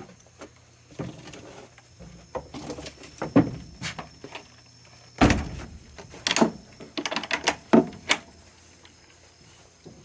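Goats moving about in their wooden goat house: irregular knocks and clatters of hooves and wood, the loudest knock about halfway through and a quick run of clatters near the end.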